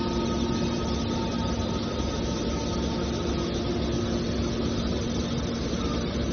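Steady industrial machinery noise with a constant hum carrying several held tones, unbroken and without knocks or pauses.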